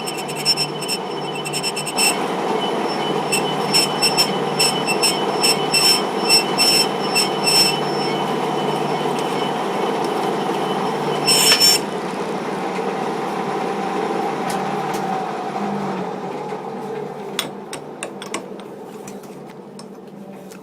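Metal lathe running and cutting metal, with intermittent high-pitched tool squeal and clicks over a steady motor hum, and a short loud squeal a little past halfway. The sound fades away over the last few seconds.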